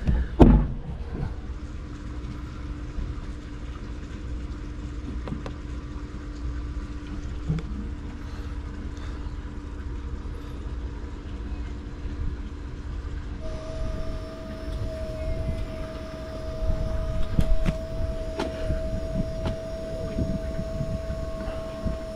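B&G T0 autopilot drive motor running during an autopilot rudder test, a steady hum joined about halfway through by a second, higher steady whine. The drive's motor and clutch-solenoid wires are swapped, so the test fails.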